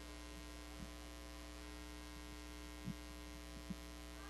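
Steady low electrical hum with overtones, likely mains hum in the audio feed, with a few faint clicks.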